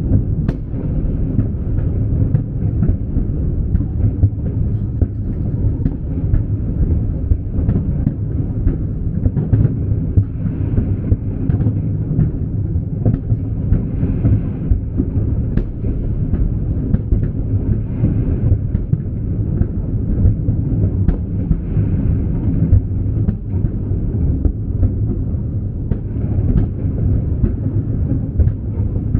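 Large fireworks display going off in a continuous barrage: booms run together into a steady low rumble, with many sharp bangs and cracks on top.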